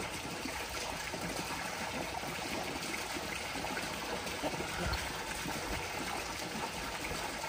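Steady sound of running water, an even rushing hiss that carries on without a break.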